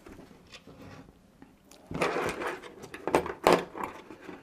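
Small parts and a steel hemostat being handled on a tabletop: a rustle about two seconds in, then a few sharp clicks near the end.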